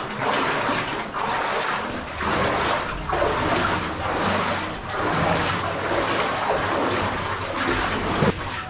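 Splashing steps of someone wading through water, surging about once a second.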